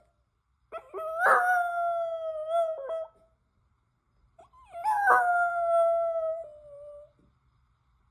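A dog howling: two long, drawn-out howls, each rising at the start and then sliding slowly down in pitch, the second starting about four and a half seconds in.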